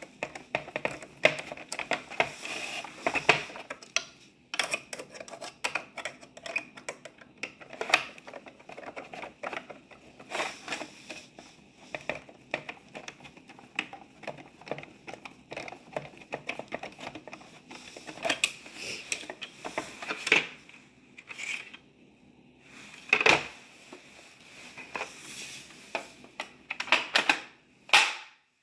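Small screwdriver driving screws into a SodaStream's plastic housing during reassembly: irregular clicks, scrapes and creaks of metal on plastic. A few louder knocks of plastic parts being handled come near the end.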